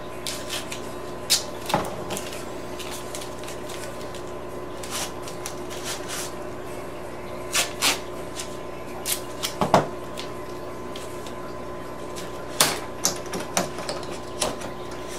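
Scattered light clicks and knocks of hand tools and a roll of tape being handled and set down on a plastic polycarbonate sheet, in small clusters, over a steady background hum with a faint constant tone.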